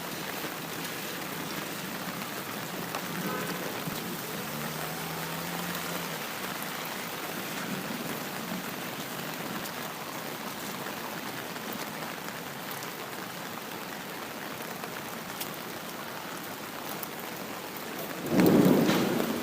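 Steady rain falling. Near the end there is a sudden loud, low noise lasting about a second and a half.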